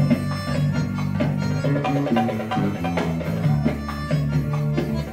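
Live instrumental music from a small band: guitar and keyboard melody over hand drums and tambourine.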